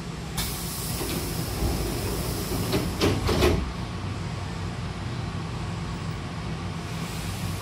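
A train's double sliding doors closing: a sudden hiss as they start to move, then knocks and a thud as the two panels meet about three seconds in. A steady low hum from the stationary train runs underneath.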